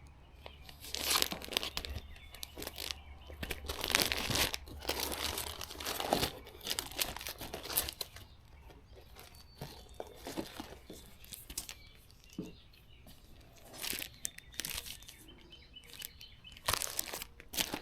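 Irregular rustling and crinkling handling noise in short, uneven bursts.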